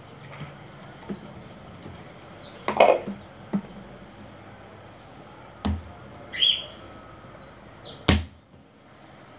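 Small birds chirping in short, repeated high notes throughout, over a few sharp knocks and clicks from a plastic funnel and bottle being handled on a stone counter. The loudest clicks come about three seconds in and near the end.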